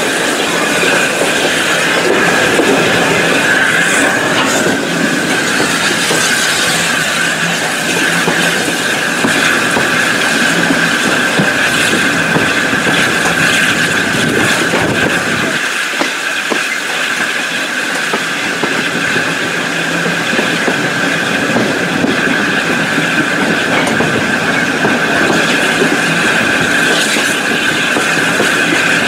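Railway carriage rolling along the track, heard from an open window: a steady din of wheels on rail with a constant high-pitched whine. The low rumble drops away briefly about halfway through.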